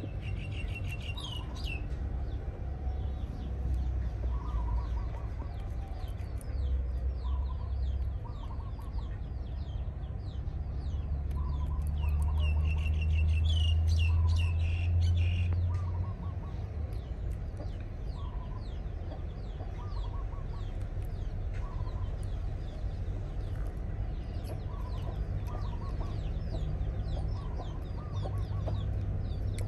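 Hens clucking in short calls every second or two, with birds chirping and a low rumble underneath that swells in the middle.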